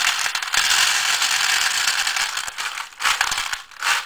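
Empty .223 brass cartridge cases pouring from a plastic tub into a Dillon case feeder's plastic bowl: a dense, continuous metallic rattle of clinking brass. After about two and a half seconds it thins out into a few last clatters as the tub empties.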